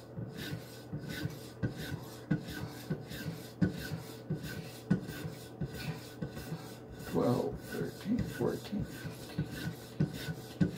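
A diamond-loaded polymer strop on a guided sharpening rig's arm, drawn back and forth along a steel paring-knife edge in steady rubbing strokes, about one and a half a second. A short, louder pitched sound breaks in about seven seconds in.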